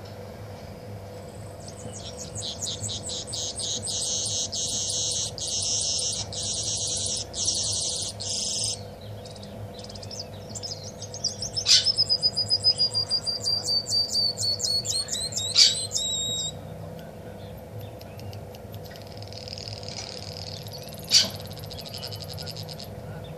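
Caged songbird singing in phrases: a long, very rapid machine-gun-like trill of repeated high notes, then a phrase with a long, slightly falling whistle and sharp accented notes, then a quieter phrase near the end.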